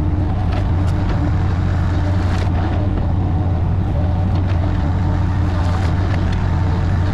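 An engine running steadily at constant speed: an even, deep hum with no revving.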